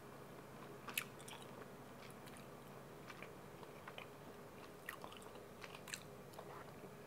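Faint wet mouth clicks and smacking of a person chewing a thin slice of cured Iberico ham with the mouth closed; the sharpest click comes about a second in. A low steady hum lies underneath.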